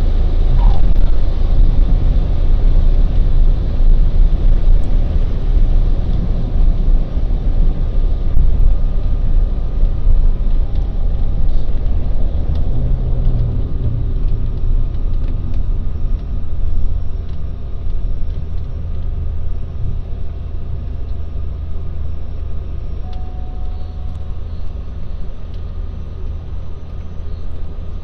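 Steady low engine rumble of a vehicle in motion, slowly growing quieter through the second half.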